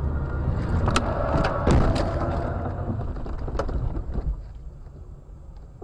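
Car crash heard from inside the car: over a low road rumble, a series of heavy thumps and crunches comes about a second in, loudest near two seconds, with one more knock a little later. After that the rumble dies down.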